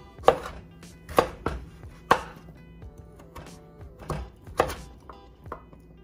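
Chef's knife chopping through raw butternut squash, the blade knocking on a wooden cutting board. The strokes are sharp and irregularly spaced, with the loudest ones near the start and again about four and a half seconds in.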